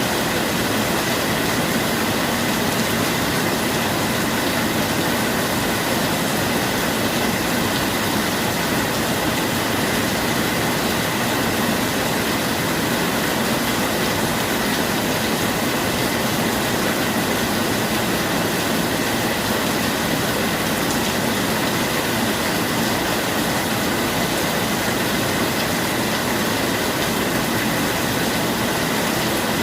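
Steady rain falling, an even unbroken hiss with no change in strength.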